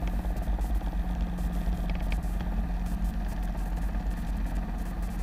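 Cabin noise of a Robinson R22 helicopter in flight: the piston engine and main rotor running steadily, with a fast, even pulsing.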